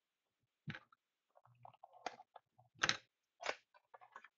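Trading-card packs and their cardboard box being handled and unpacked: short, scattered crinkles and clicks, a few louder crackles among fainter ones.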